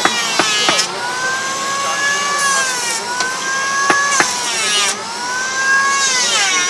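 Small electric lathe spinning a wooden cricket bat while a hand tool is pressed against the handle to round it. A steady whine sags in pitch and recovers as the cut bites, with a few sharp clicks.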